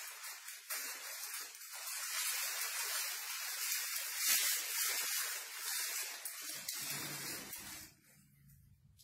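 Disposable plastic protective gown and outer gloves rustling and crinkling as they are rolled up and pulled off, with a loudest burst about four seconds in. It stops abruptly shortly before the end.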